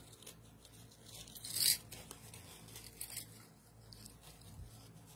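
Handling noise from jewelry pieces being picked up and sorted: a loud rustling scrape about a second and a half in, then a few light clicks and rubs.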